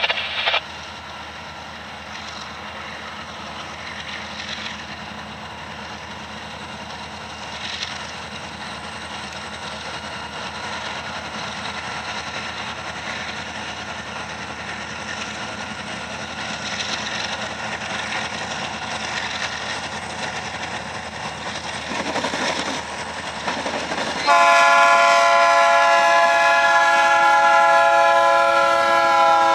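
Freight train with eight diesel locomotives approaching, its rumble slowly building, then a locomotive air horn sounding a loud steady multi-note chord starting about 24 seconds in as the lead units reach the crossing.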